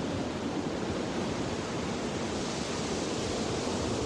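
Steady wash of ocean surf: a continuous, even rushing noise with no distinct breaks.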